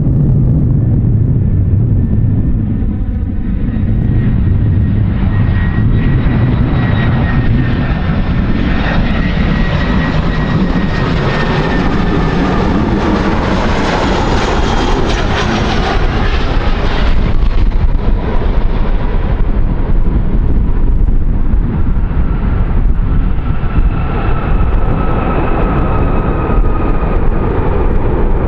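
Jet airliner engines passing by: a loud, continuous rush with a thin high whine over it. The sound grows brightest around the middle, then turns duller.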